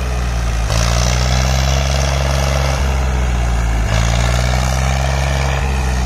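Farm tractor's diesel engine running hard under load as it tries to pull a stuck, loaded trolley. The engine note strengthens about a second in and again near the middle, easing in between.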